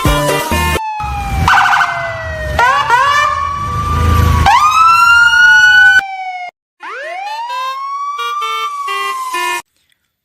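A wailing siren, its pitch sliding slowly down and back up, over background music. The music stops about six seconds in, the siren goes on a few seconds more, then cuts off suddenly shortly before the end.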